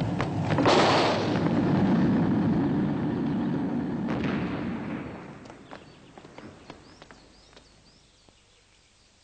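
Deep rumbling roar of a rocket launch, with a sharp crack about a second in and another around four seconds. It then dies away steadily to near silence.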